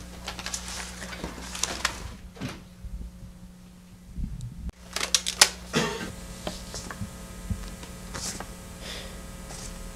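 Paper being handled at a desk: rustling and scattered light clicks and taps, with a few sharper clicks about five to six seconds in. A faint steady electrical hum runs underneath.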